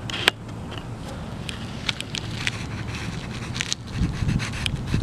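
Pencil scratching on paper in short, quick strokes, over a steady low rumble.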